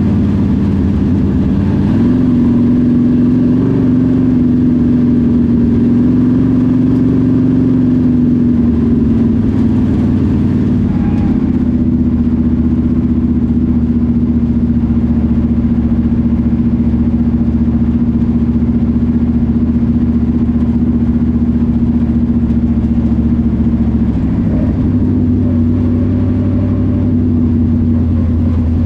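Dirt late model's GM 602 crate V8 running at low, steady revs from inside the cockpit as the car rolls slowly. The engine note rises a little about two seconds in, then eases off briefly twice, once mid-way and once later.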